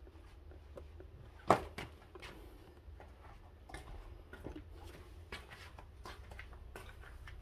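Clothes and hangers being handled at a metal drying rack: scattered light clicks and rustles, with one sharp knock about one and a half seconds in, over a steady low rumble.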